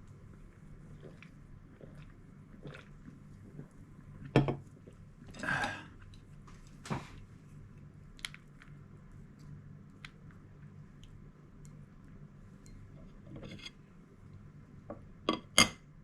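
Eating at a table: quiet chewing with scattered knocks and clinks of tableware, a sharp knock about four seconds in, a short scraping rustle just after, and two quick clinks near the end.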